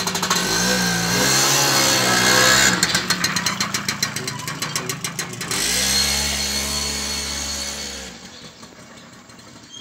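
Motorcycle engine running close by. Its pitch shifts, with a stretch of rapid even pulses, about ten a second, in the middle, then a steady note, and it drops away about eight seconds in.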